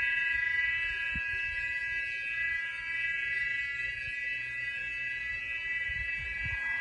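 Steady, unwavering metallic drone of several high tones sounding together, close to a held horn but stranger and more metallic; its source is unidentified. A few faint low thumps sound under it.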